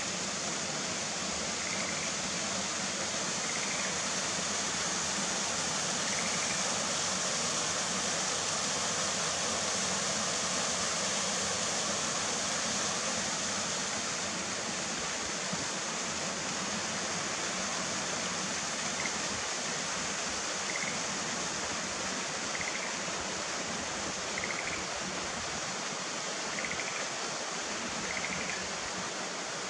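Steady rush of running water, with faint short calls of Schlegel's green tree frogs repeating every second or two, more often in the second half.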